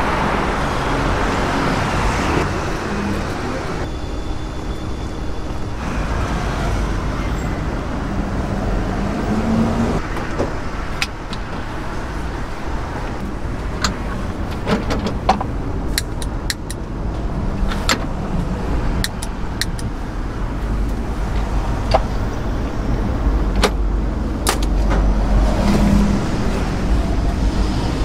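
Steady street traffic noise with a low rumble. In the second half come scattered sharp metallic clicks and clinks as the hot iron egg-bread molds are handled.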